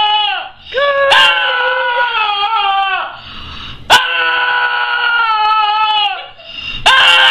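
Dog screaming in long wails, each about two seconds long with a short gap between them. Each wail holds a steady pitch and then slides down at the end. One wail ends just after the start, two more follow, and a fourth begins near the end.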